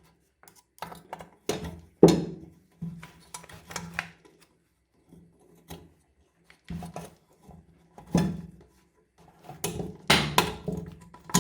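Metal parts and hand tools clinking, knocking and scraping while kick-start gears and spring are fitted back onto a scooter engine. The knocks come irregularly, about a dozen of them, with the loudest cluster near the end.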